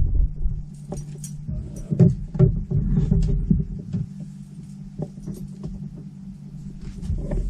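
A small motor hums steadily and low, with scattered clicks and knocks over it.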